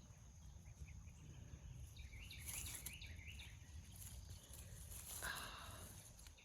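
Faint outdoor ambience with a bird's repeated chirping, a short run of quick chirps about two seconds in, over a low wind-like rumble, with a brief rustle near the end.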